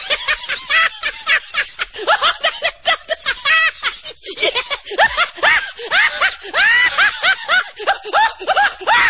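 A person laughing hard in rapid, high-pitched bursts that rise and fall in pitch, several a second.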